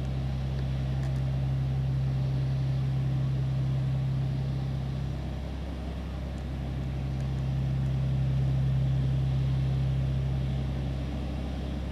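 A large engine running steadily as a low drone. It dips for about a second a little after five seconds in, comes back, and eases off again near the end.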